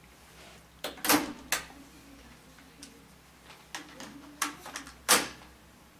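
Mechanical clicks and clunks from a Teac A-450 cassette deck as its cassette door is opened and a cassette is loaded into it, the plastic door and cassette clattering. The loudest clunks come about a second in and again near the end, with lighter ticks between.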